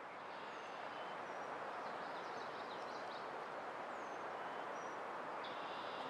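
Outdoor forest ambience: a steady rushing noise with scattered short, high bird chirps and calls above it.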